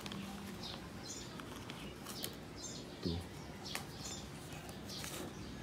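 A metal spoon tipping flour into a ceramic bowl: a soft knock about three seconds in and a couple of light clicks, under a faint, even background dotted with short, faint high chirps.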